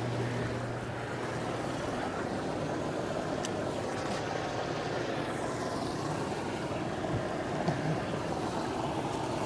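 Hot tub jets running: a steady rush of churning, bubbling water.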